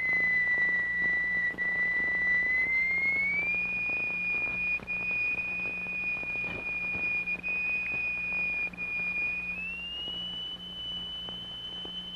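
A single steady, whistle-like pure tone of the kind used to set a plate vibrating into sand figures. It glides up to a higher note about three and a half seconds in, and up again near ten seconds, over a low steady hum.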